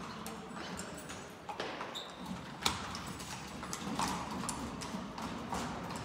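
Horse hooves clip-clopping on the stone path of a narrow canyon, an irregular run of sharp clicks, with one louder knock a little under three seconds in.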